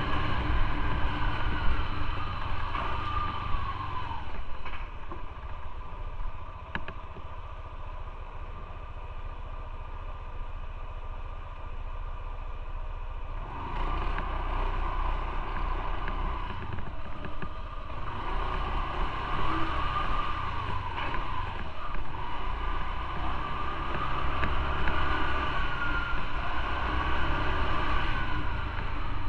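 Motorcycle engine running on the move, its pitch rising and falling with throttle and gear changes, over wind and road noise. From about four seconds in until nearly halfway it drops to a quieter, steadier note, then opens up again.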